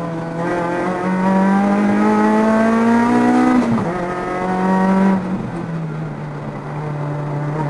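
Rotrex-supercharged Toyota MR2 AW11's 4A-GZE four-cylinder engine, heard from inside the cabin, pulling at full throttle with its note rising, then a quick upshift about three and a half seconds in. It pulls again, and about five seconds in the throttle is lifted and the note falls to a lower, steadier pitch.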